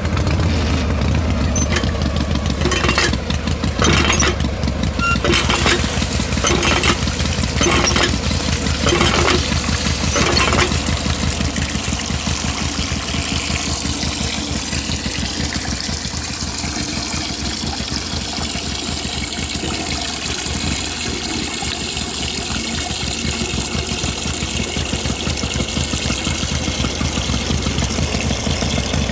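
Small single-cylinder diesel engine running steadily, driving a belt-driven water pump. For the first ten seconds or so a knock comes about once a second, then it settles into an even run.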